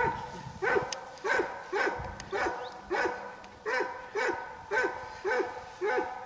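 Plott hound barking in a steady, evenly spaced rhythm, about two barks a second, as a dog does when baying at a wild boar.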